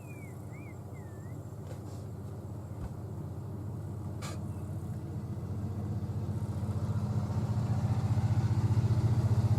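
Vehicle engine running with a low hum that grows steadily louder, with a few short bird chirps near the start.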